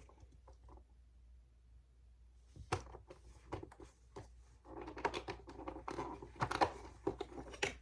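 Cardboard and paper packaging of a chocolate advent calendar being torn and crinkled as door number 4 is opened: a few sharp clicks after about two and a half seconds, then a denser run of crackling from about five seconds in.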